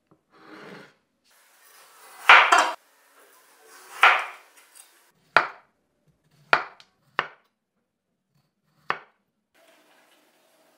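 A raw potato being cut with a knife on a wooden chopping board: two longer cuts drawn through the potato, then four sharp knocks of the blade on the wood, spaced unevenly.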